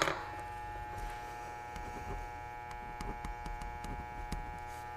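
Steady electrical hum made of several fixed tones, with faint light scratches of a pen writing on paper.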